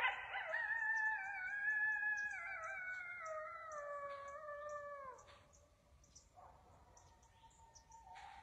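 Coyote howling close by: a sudden loud start, then a long wavering howl that slowly falls in pitch and slides down to an end about five seconds in, followed by a fainter, steadier howl near the end.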